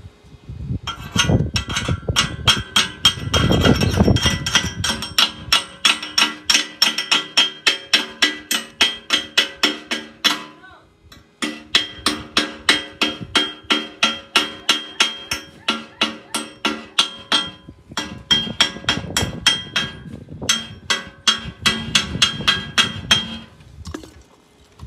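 Background music with a steady percussive beat of about three strokes a second over sustained chords, breaking off briefly twice.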